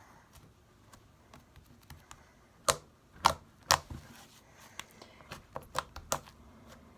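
Homemade glue slime being squeezed and worked by hand, giving a series of sharp popping clicks: three loud pops a few seconds in, then a string of smaller ones.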